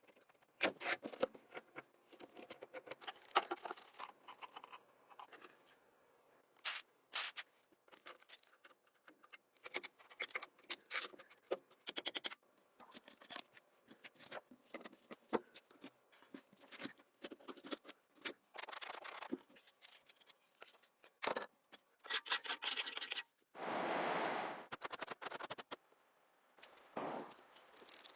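Hand-tool scraping and scratching on an object being restored, with irregular clicks and knocks. A steady noisy burst lasts about a second and a half near the end.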